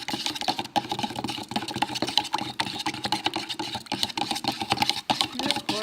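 Fake blood made of powdered sugar, water and food colouring being mixed in a container: a steady, fast rattling run of clicks.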